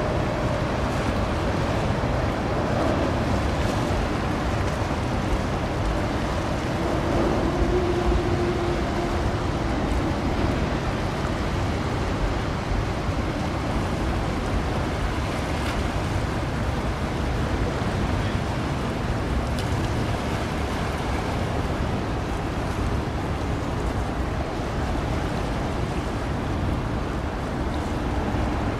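Steady rush of wind and waves at sea, with a faint hum that swells briefly about seven seconds in.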